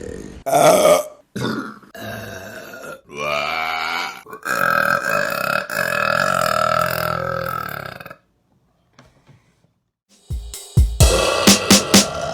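A run of loud burps from women: a few short ones, then a long drawn-out burp lasting several seconds. After a short silence, music with a heavy electronic beat starts.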